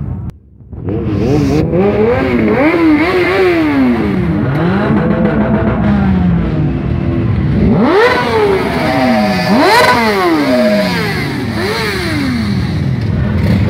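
Motorcycle engines, sport bikes among them, being revved over and over, several at once. Their pitch sweeps up and drops back in quick repeated blips, with the sharpest, highest revs about eight and ten seconds in.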